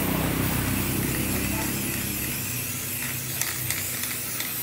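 Aerosol spray-paint can hissing steadily as paint is sprayed onto a metal machine frame. A low hum underneath stops about halfway.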